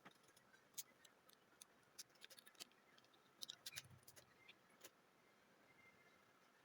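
Faint, irregular clicks and ticks of small tools on the tiny parts of an opened AirPod, thickest in the middle of the stretch.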